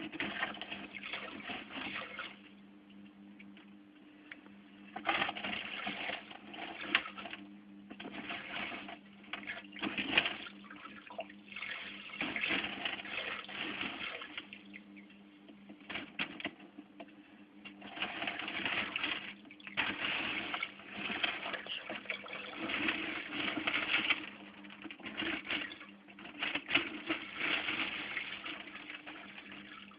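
Water sloshing and splashing in an aquarium in irregular bouts, starting and stopping every few seconds, over a steady low hum.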